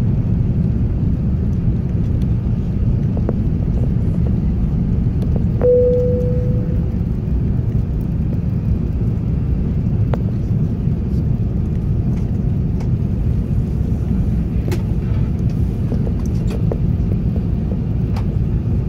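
Steady low rumble of a British Airways Airbus A380's Rolls-Royce Trent 900 engines and the airflow, heard inside the upper-deck cabin during takeoff and initial climb. A single bright tone rings out and fades about six seconds in, and a few faint clicks come later.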